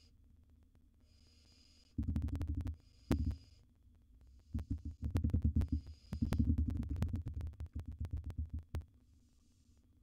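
Barn owls giving faint, repeated breathy hisses about once a second. From about two seconds in until near the end, loud bursts of rapid scratching and knocking drown them out.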